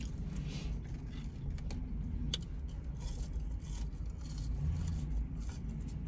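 Low steady rumble inside a car cabin, with light clicks and rustles of fast food being picked up and eaten. One sharper click comes about two seconds in.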